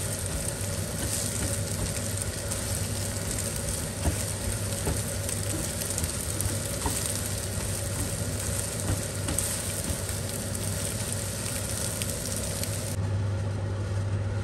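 Egg frying in oil in a pan, sizzling steadily while a silicone spatula chops and scrapes it into small pieces, with faint ticks of the spatula against the pan. Near the end the sizzling drops away, leaving a low steady hum.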